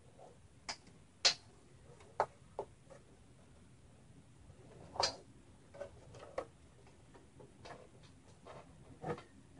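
Irregular clicks and light knocks of cables and plastic connectors being handled and fitted inside a small computer case, about a dozen sharp taps spread unevenly, the loudest about a second in and again about five seconds in.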